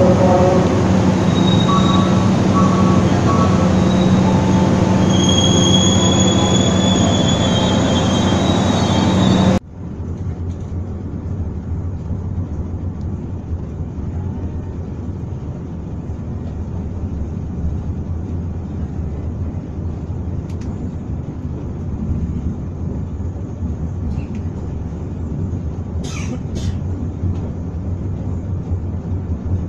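Passenger train carriages rolling along a station platform: a loud rumble with high, drawn-out wheel squeals. About ten seconds in the sound drops suddenly to the quieter, steady rumble of the train heard from inside a moving carriage, with a couple of short clicks near the end.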